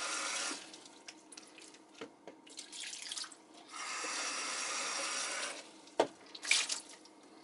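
Kitchen faucet running into a plastic cup, briefly at the start and again for about two seconds in the middle, with small knocks of the cup in between. Near the end a short splash as the cupful of tap water is poured over a frozen ice globe in the sink, a little at a time so that thermal shock does not crack the ice.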